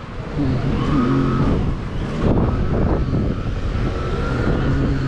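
A car engine running close by, among street noise.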